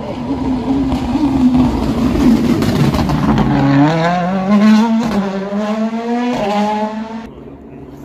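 A World Rally Car's engine at full throttle, its note climbing through the gears. There is a sharp crack at each of two upshifts about a second apart, and the sound drops away near the end as the car pulls off.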